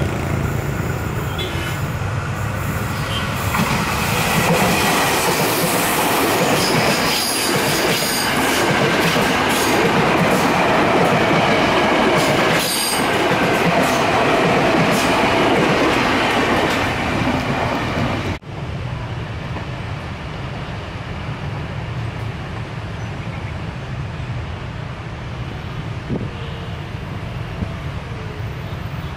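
KRL Commuter Line electric train passing close on a curve: a loud running rumble with clacks over the rail joints and a high wheel squeal. It builds over the first few seconds, then cuts off abruptly about two-thirds of the way through to a quieter, steady background rumble.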